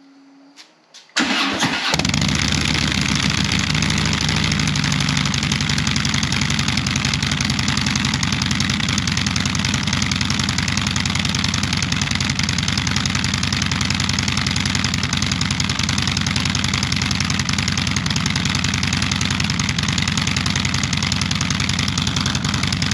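2016 Harley-Davidson Street Glide's V-twin starts about a second in and then idles steadily through Rinehart Racing slip-on mufflers fitted with quiet baffles, which take away much of the raspy, high-pitched exhaust sound.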